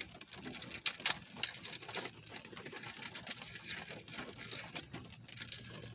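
Takeout food containers and wrappers being handled and opened: a run of irregular light clicks, crackles and rustles, the sharpest about a second in.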